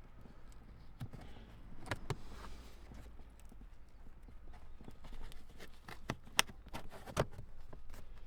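Scattered clicks and knocks of plastic floor-mat retaining clips and a rubber all-weather floor mat being handled and pushed into place in a car footwell, with a pair about two seconds in and several sharper ones between six and seven and a half seconds.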